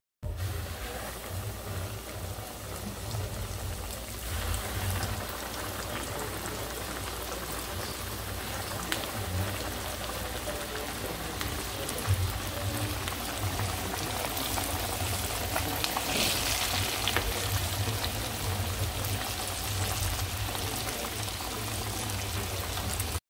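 Flour-coated chicken thighs deep-frying in a pot of hot oil: a steady sizzle and bubbling, a little brighter after about four seconds, over a low steady hum.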